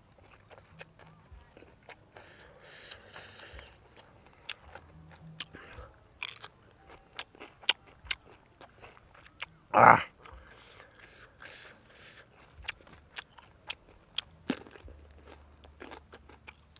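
A person chewing and biting roast duck and crisp raw vegetables close to the microphone: a string of small crunching clicks and mouth sounds, with one much louder mouth sound about ten seconds in.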